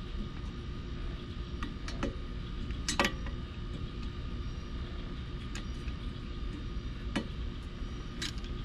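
Scattered sharp clicks and knocks, seven or so, the loudest about three seconds in, over a steady low hum.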